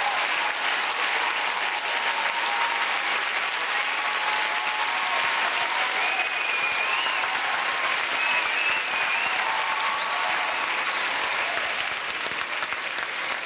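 Studio audience applauding and cheering after a dance, with a few high whistles from the crowd in the middle.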